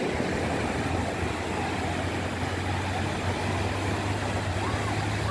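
Steady wash of surf on the beach, with a low rumble of wind on the microphone.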